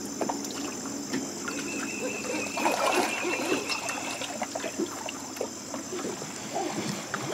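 Small waves lapping and trickling against a boat hull and dock, with scattered light splashes. A faint steady high whine runs underneath.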